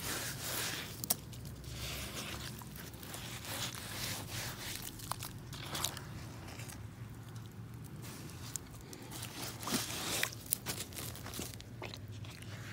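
Thick mud and muddy water squelching and sloshing as a foot and rubber muck boots are worked around in it, in irregular wet squishes with a few sharp clicks.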